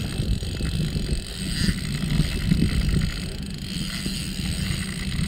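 Wind buffeting the microphone outdoors, a low irregular rumble.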